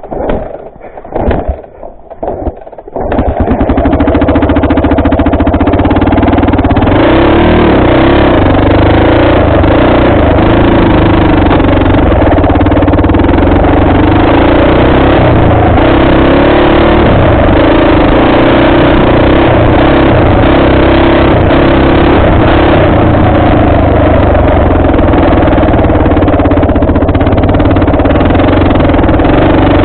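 Dirt bike engine: a few short, uneven bursts in the first three seconds, then a loud, steady run as the bike is ridden along the trail.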